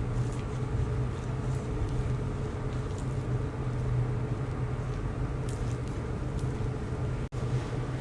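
Steady low hum of a running cryolipolysis machine's cooling unit, with several fixed tones. The sound cuts out for an instant near the end.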